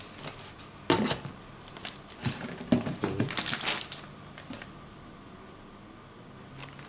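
Cardboard packaging being handled as an inner box is taken out of its shipping box: rustling and crinkling with a few sharp knocks, most of it in the first four seconds.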